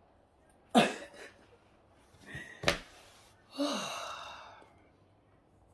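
A woman's wordless, breathy vocal sounds: a short exclamation with a falling pitch about a second in, then a longer falling sigh past the middle, with a sharp tap just before it.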